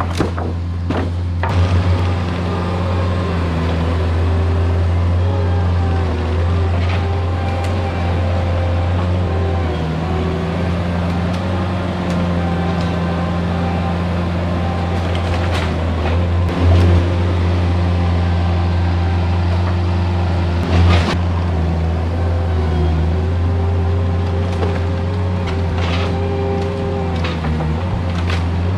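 A Vermeer mini skid steer's engine runs steadily under load, with a wavering whine over the drone. A few sharp knocks come through, the loudest two in the second half, as the deck is pulled down.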